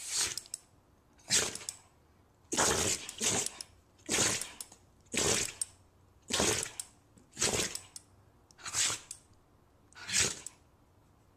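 A dog sneezing over and over, about ten short sneezes roughly a second apart.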